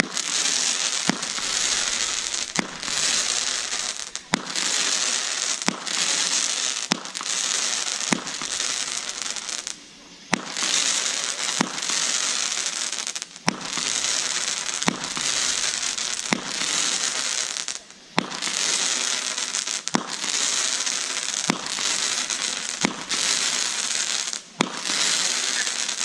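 Ground firework burning and spraying sparks: a steady loud hiss with scattered sharp crackling pops, briefly dropping away a couple of times before starting up again.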